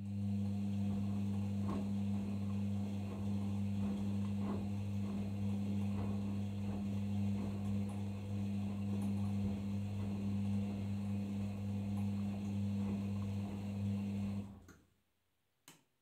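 Arçelik 5083 washing machine's water inlet valve letting water in: a steady mains hum with rushing water that cuts off sharply about fourteen and a half seconds in. A single click follows near the end.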